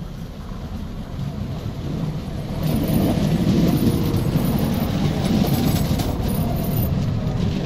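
Bombardier CR4000 Flexity Swift tram running on ballasted track, its wheels rumbling on the rails. It gets louder as it comes alongside about three seconds in, then stays loud as the cars pass, with a faint high-pitched whine above the rumble.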